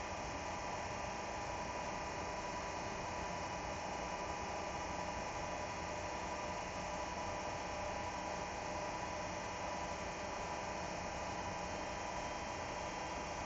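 Steady hum with a hiss, unchanging throughout, from a CNC machine tool running during a program dry run; no cutting, clicks or impacts.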